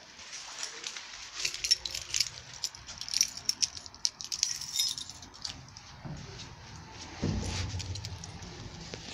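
Light metallic jingling and clicking in quick irregular bursts through the first five seconds, then a low rumble about seven seconds in.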